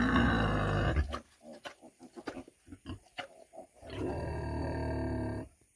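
Adult sow grunting: a long, drawn-out grunt, then a quick run of short grunts while she roots with her snout, then a second long grunt near the end.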